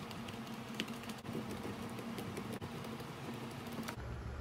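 Light, irregular clicks and taps of plastic and metal as hands work a DeWalt cordless drill's clutch and chuck end with a screwdriver while taking the drill apart, over a faint steady hum.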